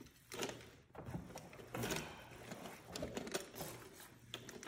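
Irregular small clicks, taps and scrapes of a diecast metal action figure being handled and fitted onto its plastic display stand.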